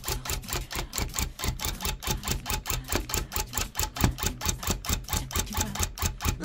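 Electric tufting gun running, punching yarn into the backing cloth: a rapid, even clacking at about seven strokes a second over a low motor hum.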